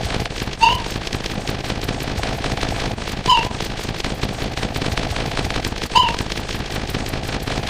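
A dense jumble of layered sound effects: a continuous rapid crackle of clicks and pops, with a short high call-like tone repeating three times, about every two and a half seconds.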